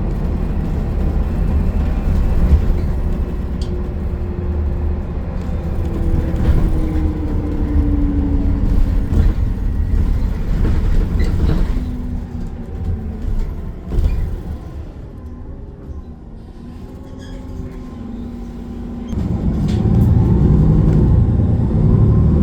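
Riding inside a city bus: engine and road noise with a whining transmission tone that falls in pitch. The noise quiets for a few seconds as the bus slows, then rises again as it pulls away near the end.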